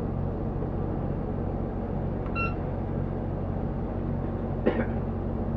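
Motor cruiser's engine running steadily at low speed, a low hum. About two seconds in there is one short electronic beep, and near the end a single sharp knock.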